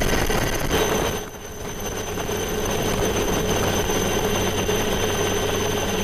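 A steady mechanical drone with a thin high whine over it. It dips briefly about a second in, then holds steady.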